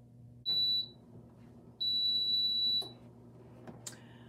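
PYD Life mini sublimation oven beeping: a short high beep, then a longer one lasting about a second. The beeps signal that the oven has reached its set temperature and is ready for the mug.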